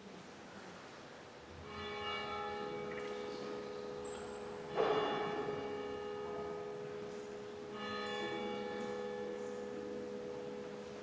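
A church bell tolling: three strokes about three seconds apart, each ringing on into the next.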